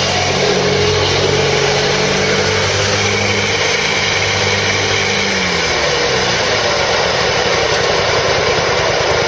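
Exmark Lazer Z zero-turn mower's Kohler Command 23 hp V-twin engine running steadily. About five to six seconds in, its note shifts and the steady low hum breaks up into a rougher sound.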